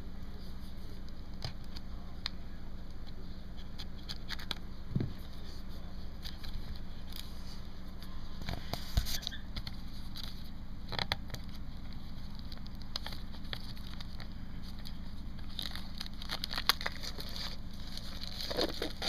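Plastic packaging being punctured and torn open by hand: scattered crackles, scrapes and rustles of the wrap, over a steady low hum.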